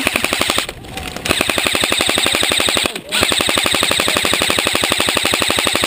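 Airsoft rifle firing on full automatic: a rapid, even stream of shots in long bursts, broken briefly about a second in and again about three seconds in.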